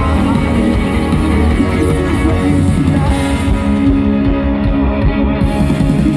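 A live rock band plays loudly through a big outdoor stage sound system, with guitar prominent over a heavy, steady bass.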